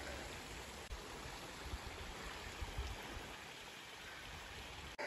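Steady rush of running water from a small rocky bush creek, with uneven low wind buffeting on the microphone.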